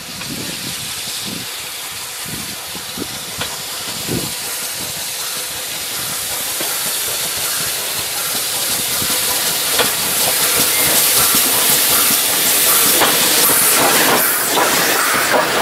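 Steam locomotive approaching and drawing level, its steam hiss growing steadily louder, with the clicking of its wheels on the rails joining in as it comes close.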